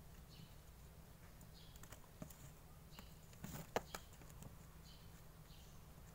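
Small clicks and taps of a soft plastic nursery pot and potting soil being handled with gloved hands while the soil is firmed around a seedling, the sharpest click a little past halfway. Faint high chirps come and go in the background over a steady low hum.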